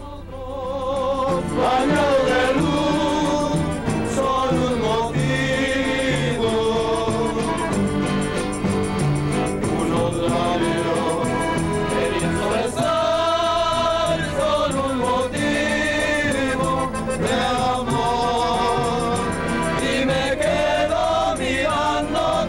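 A congregation of many voices singing a church hymn together, the sung melody carrying through without a break.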